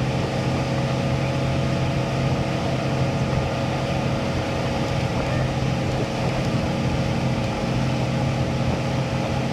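Motorboat engine running steadily at towing speed, a constant hum under the rushing water of the wake.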